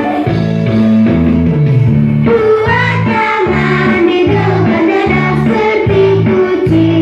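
Background music: a song with a sung melody over a steady rhythmic bass and accompaniment.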